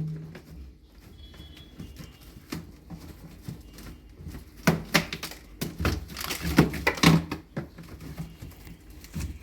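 Irregular knocks and clatter of chunks of ice being worked loose and falling inside a deep freezer as it defrosts. The hits bunch together about halfway through.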